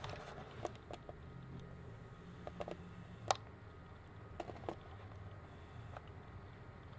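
Faint handling noise from a handheld camera: a few soft clicks and taps over a low steady hum, the sharpest click a little past three seconds in.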